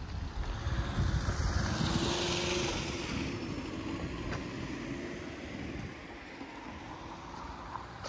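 Street traffic: a vehicle passes, its hiss swelling and fading over the first few seconds, with wind buffeting the microphone.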